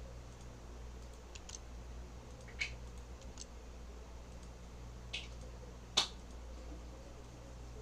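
A few scattered clicks of a computer mouse and keyboard over a low steady hum, the loudest about six seconds in.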